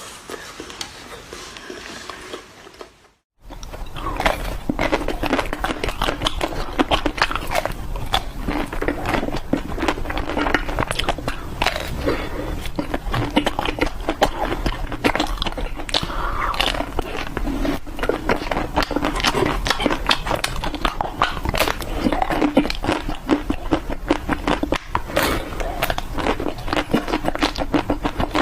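Ice cream being eaten close to the microphone: a dense, continuous run of small crackling clicks from biting and chewing. It starts loud after a brief silent break about three seconds in, following a quieter stretch.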